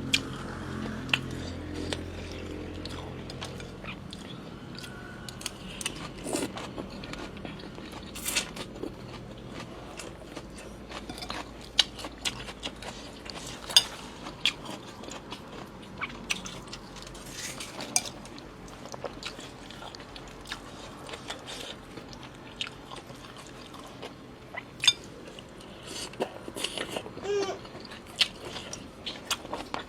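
A person eating a bowl of noodle soup: chewing, with many short, scattered clinks of a spoon or chopsticks against the bowl.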